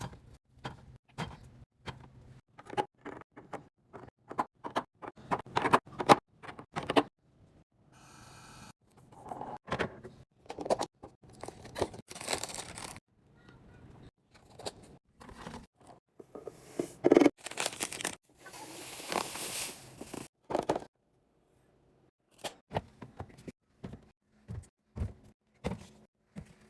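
Items being handled while a fridge is restocked: quick clicks and knocks of things set down and clattering, with stretches of crinkling and tearing packaging near the middle and again a little later.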